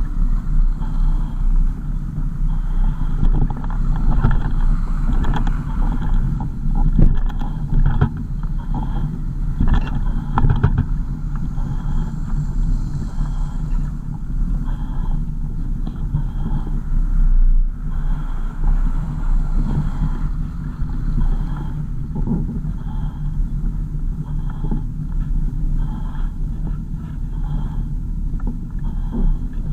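A car driving, with steady engine and road rumble throughout and occasional knocks and rattles.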